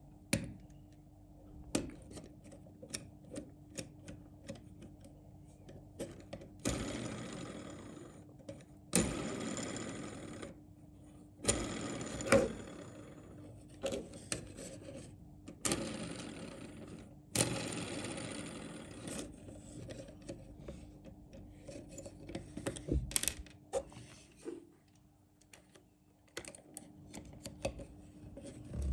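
Plastic LEGO Technic gearless crank-and-linkage transmission worked by hand: the axles, cranks and linkage rods rattle and click in five runs of a second or two while it is turned, with scattered single clicks of plastic parts before and after.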